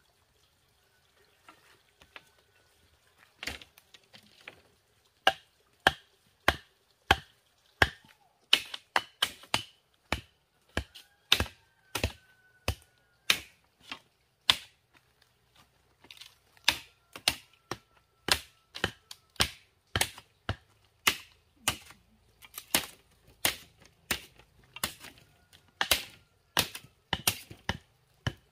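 Sharp wooden knocks of a hand tool striking bamboo stakes, irregular, a few at first and then about one or two a second.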